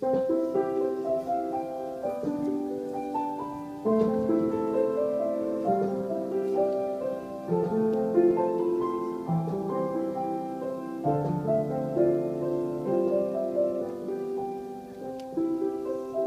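A keyboard instrument playing a slow tune in held chords, with a low bass note coming in about eleven seconds in.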